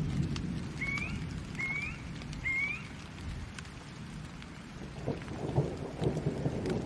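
Thunderstorm with steady rain and low rolling thunder; the rumble eases midway, then comes back with crackling from about five seconds in. Three short rising chirps sound about a second in.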